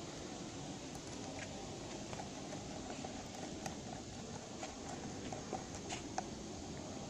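Scattered light clicks and taps of hand assembly on an aluminium skylight frame, a screw being driven into a corner bracket with a hand screwdriver, over steady background noise.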